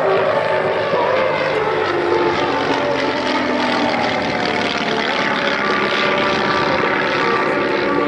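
Pair of propeller-driven aerobatic display planes with their piston engines running hard through a looping manoeuvre. The engine sound swells and shifts in pitch as they pass, with display music playing underneath.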